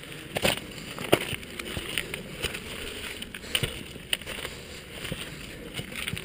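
Footsteps and paws on a loose, stony trail: irregular crunches, clicks and scrapes of gravel and rock underfoot.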